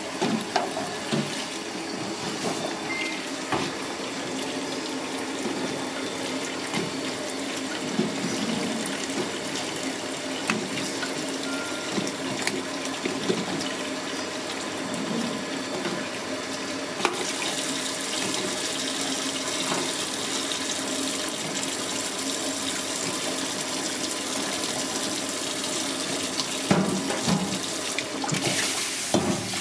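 Tap water pouring steadily into a metal bowl of duck eggs in a stainless-steel sink, with scattered light knocks of the eggs clicking together as they are handled, a few sharper ones near the end.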